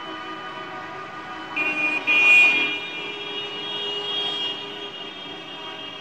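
Street traffic with a car horn honking twice in quick succession: a short blast about one and a half seconds in, then a longer, louder one right after.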